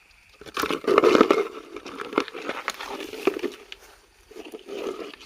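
Rustling and crackling, with many small sharp clicks over rough noise: a long spell, then a shorter one near the end.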